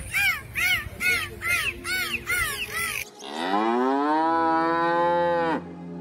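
A dolphin's rapid squeaky chirps, about three a second, each rising and falling in pitch, for about three seconds. Then a cow moos once, a long call that rises at the start, holds, and drops off at the end.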